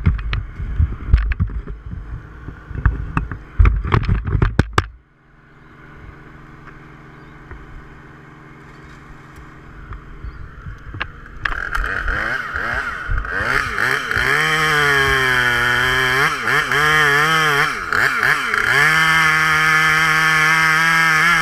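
Knocks and clatter for the first few seconds, then a low steady engine hum; about halfway through a chainsaw comes in loud, revving up and down several times before holding at a steady high speed.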